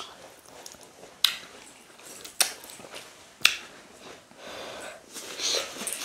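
Close-up eating sounds of fufu and ogbono soup being eaten by hand: wet mouth and lip smacks while chewing, with three sharp smacks about a second apart, then softer wet chewing near the end.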